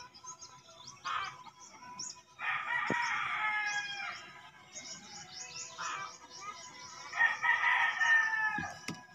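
A rooster crowing twice, each crow about a second and a half long and dropping in pitch at the end, with small birds chirping quickly and high in the background.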